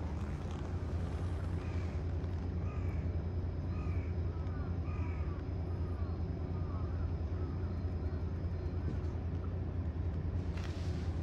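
A string of short animal calls, each rising and falling, coming about one or two a second and crowding together in the middle, over a steady low hum.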